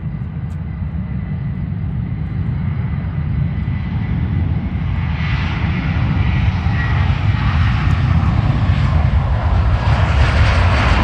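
Boeing 757 jet engines: a steady low rumble that slowly grows louder, with a hiss building from about five seconds in as the airliner comes closer.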